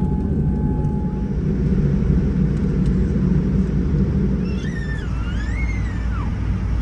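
Steady low rumble inside the cabin of a Boeing 787-9 Dreamliner on the ground after landing. A thin steady tone fades out about a second in, and a brief warbling high-pitched sound comes near the end.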